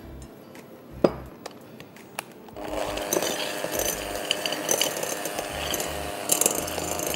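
A few sharp clicks, then about two and a half seconds in an electric hand mixer switches on and runs at a steady pitch, its beaters creaming softened butter in a glass bowl.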